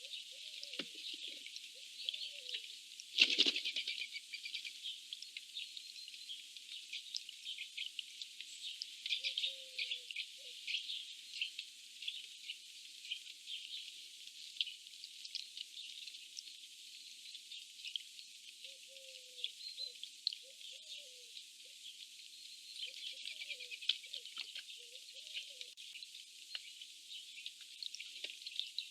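Eurasian jays squabbling over food: harsh, rasping, crackly calls and chatter go on throughout. About three seconds in comes a sudden loud scuffle of wings, and short, low, wavering notes come now and then.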